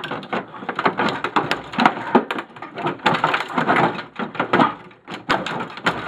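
Plastic printer housing being pried apart with a big flat-head screwdriver: a rapid, irregular run of cracks, creaks and snapping clips.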